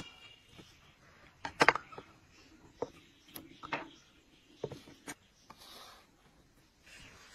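Quiet handling sounds of food being prepared: scattered light clicks and taps with some soft rubbing.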